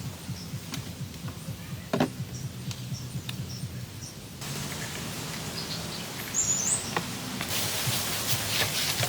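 Scattered knocks and low rustling of wood being handled, with a short burst of bird chirps about six and a half seconds in.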